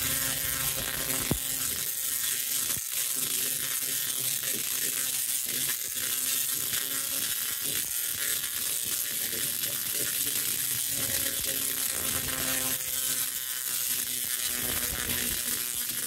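Tesla coil firing continuously, its sparks arcing through the air with a steady electric buzz and crackle over a pitched hum.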